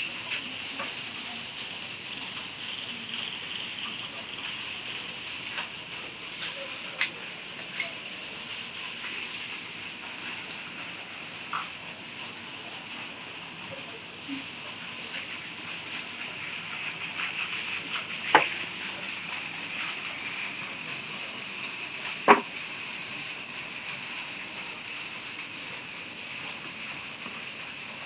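Steady high-pitched hiss of night insects chirring, with a few scattered light clicks and two sharper knocks in the second half.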